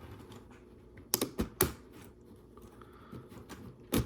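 Plastic Lego Technic parts clicking as they are handled and pressed together: a quick cluster of about four sharp clicks a little over a second in, and one more near the end.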